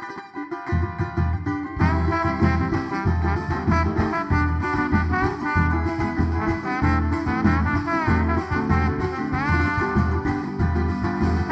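A band playing the instrumental introduction of a song. It opens with a few plucked notes, then bass and a steady beat come in within the first two seconds under a lead melody.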